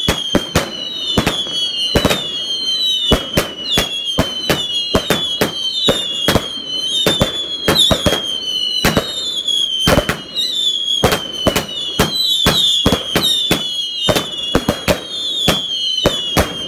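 A fireworks barrage firing shot after shot: sharp bangs about twice a second, each shot trailing a high whistle that slides slightly down in pitch. The whistles overlap into an almost unbroken shrill tone.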